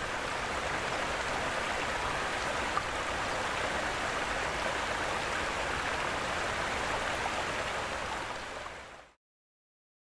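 Steady rush of flowing water, even and unbroken, fading out near the end.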